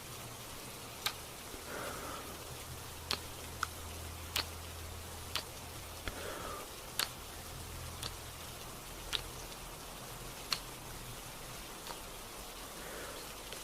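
Gentle rain: a steady hiss with sharp, single ticks about once a second, and three soft, brief sounds in the middle range that stand out from the hiss.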